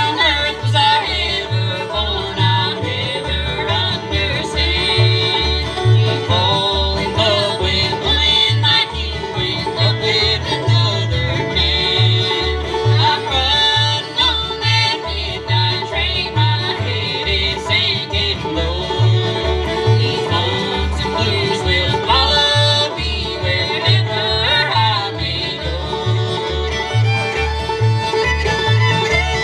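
Bluegrass band playing live: five-string banjo picking out front over fiddle and acoustic guitars, with an upright bass keeping a steady beat about twice a second.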